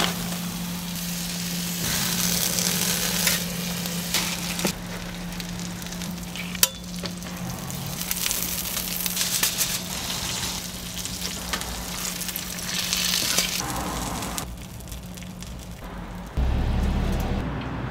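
Eggs and sausages sizzling on a flat-top griddle, the hiss swelling and fading, with a few sharp utensil clicks and a steady low hum underneath. A louder low rumble comes in near the end.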